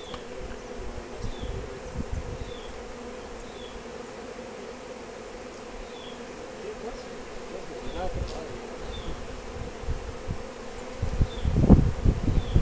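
A swarm of honeybees buzzing steadily, a mass of bees clustered on a homemade bee trap box. Low rumbling thuds come in near the end.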